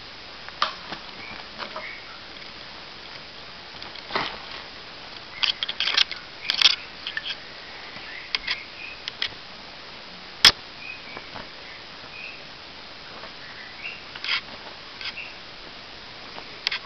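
Scattered clicks and light knocks from a Bengal kitten playing with a wand toy and toy tower on bedding, bunched around six seconds in, with one sharp click about ten seconds in the loudest. A few faint, short high chirps come in between.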